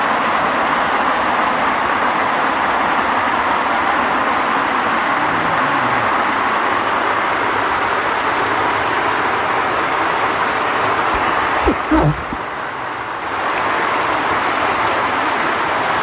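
Steady rushing noise of a waterfall heard from the pool at its base. About twelve seconds in there are a couple of low knocks and the sound goes dull for about a second before coming back.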